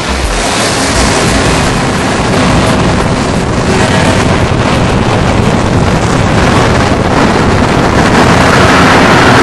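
Loud, steady rush of wind over the microphone with vehicle noise underneath, recorded on the move in traffic. It grows a little louder toward the end.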